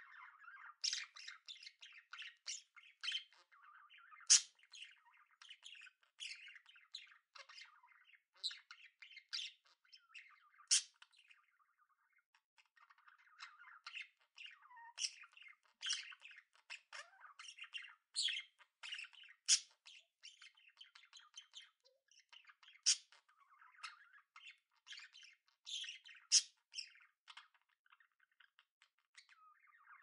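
Budgerigars chattering: a continuous soft warble with many sharp, high chirps and squawks scattered through it, and a brief lull about twelve seconds in.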